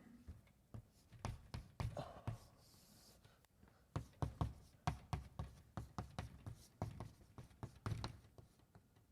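Chalk tapping and scraping on a blackboard as someone writes: a run of short, sharp strokes and taps, busiest in the second half.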